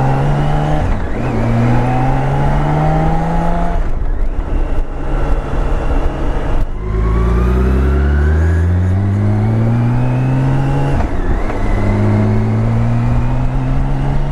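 BMW K1600B Grand America's inline-six engine accelerating hard, its pitch climbing through each gear, with the climb broken by upshifts about a second in, near four seconds and around eleven seconds.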